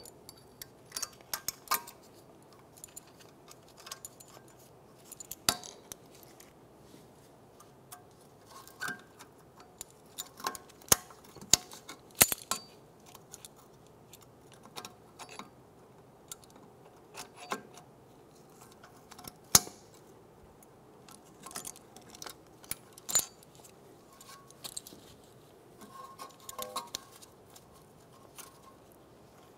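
Irregular sharp metallic clicks and clinks of pliers against small steel brake hardware as the parking brake shoe's hold-down pin and clip are worked into place on the backing plate.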